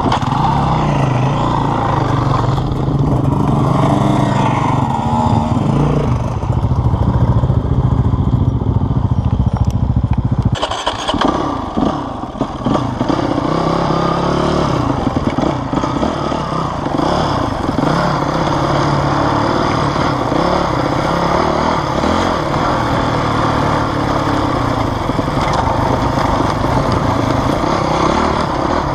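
Off-road trail motorcycle engine heard from a camera mounted on the bike, running and revving up and down as it is ridden over rough stony and grassy track. The sound breaks off sharply about ten seconds in and picks up again in a slightly different tone.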